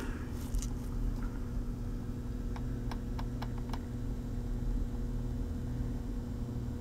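A laptop touchpad or mouse button clicked several times, light clicks grouped mostly around the middle, as the battery status pop-up is opened, over a steady low hum.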